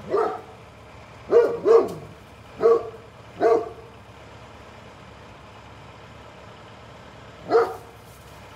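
Great Pyrenees barking loudly at the mail truck: five single barks in the first three and a half seconds, a pause of about four seconds, then one more bark near the end.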